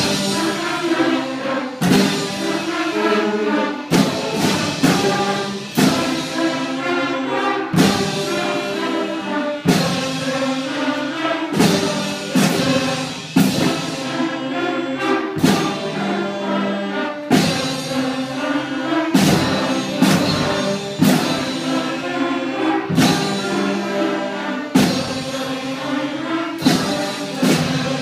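Elementary school concert band playing, flutes and clarinets holding notes over a drum stroke that falls roughly every two seconds.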